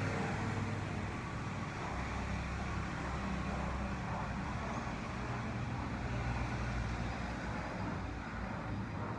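Steady road-vehicle noise: a low engine rumble under a continuous hiss of traffic or tyres.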